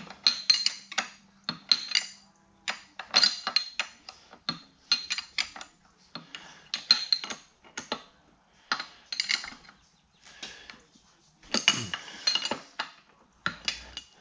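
Metal hand tools and parts clinking and clattering in short bursts again and again, sharp metal-on-metal clicks with a brief ring.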